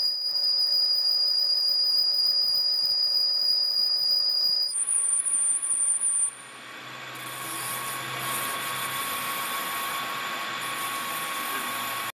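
Manual metal lathe cutting a spinning metal workpiece: the tool squeals with a steady high-pitched whistle that jumps higher about five seconds in. The squeal stops about six seconds in, leaving a quieter cutting hiss and the low hum of the running lathe.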